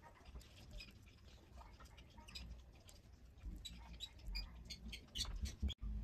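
Faint crackling and clicking as fingers pick broken shell and dried, stuck membrane off a hatching lovebird egg: an assisted hatch of a chick glued inside its shell. The quick ticks come thicker and a little louder near the end.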